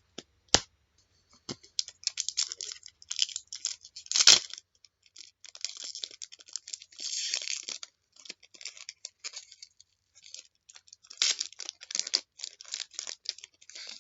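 Trading card packs being handled: a foil pack wrapper crinkling and tearing, and cards being flicked and shuffled by hand, in irregular bursts of rustling with a couple of sharp clicks.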